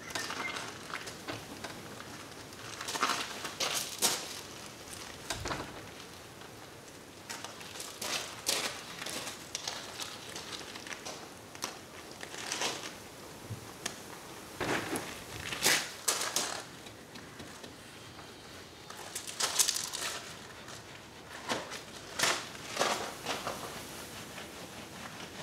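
Irregular crunching of boots on loose gravel as a person shifts and walks around a car, mixed with the rubbing of a wash mitt on wet bodywork.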